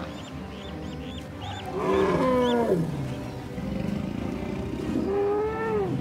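African elephants calling twice: a call about two seconds in that slides down in pitch, then a shorter call near the end that rises and then falls.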